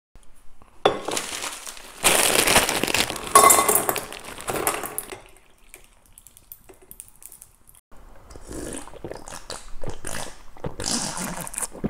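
Makgeolli poured from a can into a stainless steel bowl of ice, with clinking and splashing against the metal. From about eight seconds in come short, irregular drinking noises as the bowl is drunk from.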